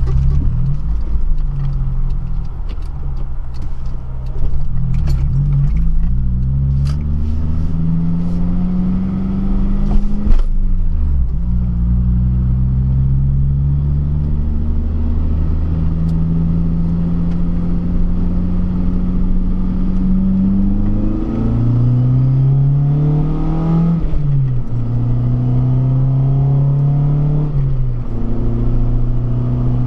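Honda Civic Si (EP3) engine pulling through the gears on a drive: its pitch climbs under acceleration and falls sharply at each upshift, several times over. In the first ten seconds there are light clicks and rattles.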